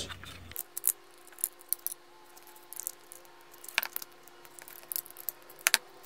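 Small screwdriver tightening screws by hand into a plastic battery housing: scattered light clicks and ticks of the tool and the plastic being handled.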